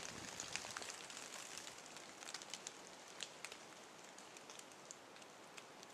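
Faint, irregular crackles and ticks in dry fallen leaves over a soft hiss, several a second, fading slightly toward the end.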